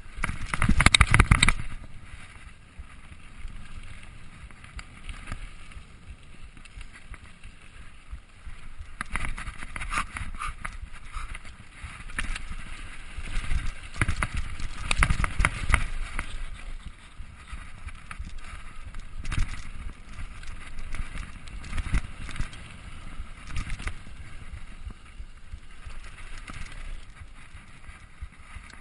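Mountain bike, ridden without its chain, rolling fast down a dirt forest trail: tyre noise on the ground with bursts of rattling and clatter as it runs over bumps. The loudest clatter comes about a second in, with more around the middle.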